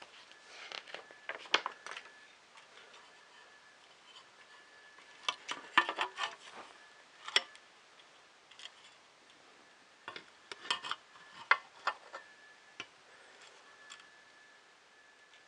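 Small printer parts being handled and fitted by hand: light plastic and metal clicks and taps in three short clusters, with quiet pauses between them.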